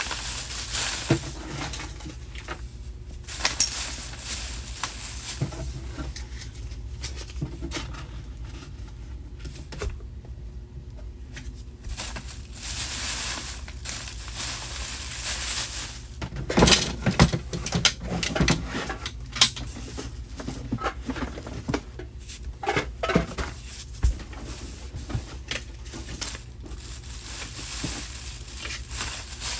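Handling noise: irregular clicks, knocks and rustling as small objects and containers are moved about, with a cluster of louder clatters about halfway through.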